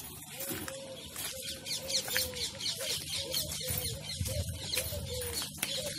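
Birds calling: a steady run of short, repeated low notes, about three a second, with quick higher chirps above them.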